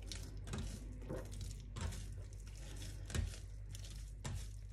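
Hands kneading olive-oiled pizza dough on a countertop: irregular soft squishes and knocks, roughly one a second, the firmest about three seconds in.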